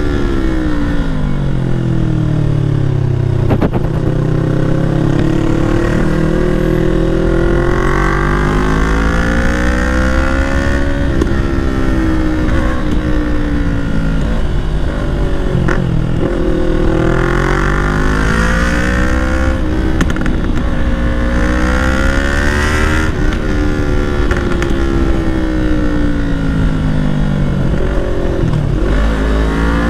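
Yamaha R3's parallel-twin engine through a Leo Vince full-system exhaust, riding under way. Its note rises as the throttle is opened and drops back again, over and over through the gears.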